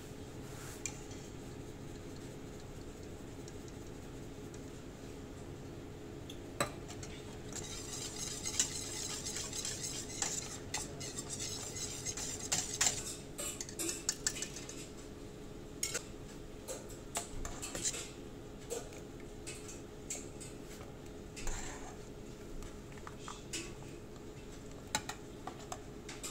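Wire whisk beating cheese sauce in a stainless steel pot: fast, rhythmic scraping and clinking of metal wires against the pot, starting about a quarter of the way in. It then gives way to scattered single clinks of metal on the pot. A low steady hum runs underneath throughout.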